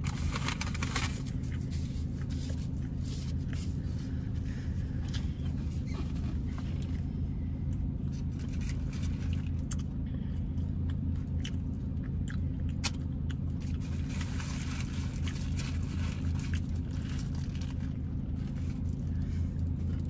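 Chewing and crunching on a sandwich, with crinkling of its foil and paper wrapping, over the steady low hum of a car's engine heard inside the cabin.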